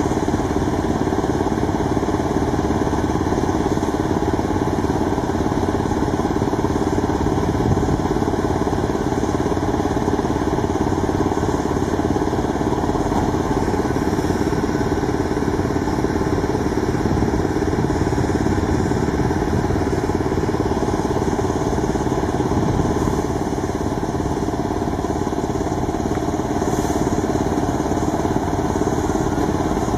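A heavy engine, as of a truck crane's diesel, running steadily at an even speed.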